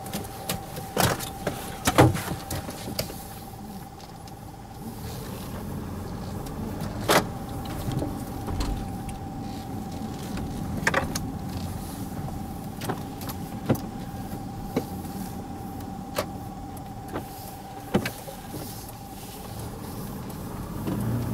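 Car cabin while driving slowly: low engine and road rumble with a steady faint whine, broken by occasional sharp knocks and bumps at irregular intervals.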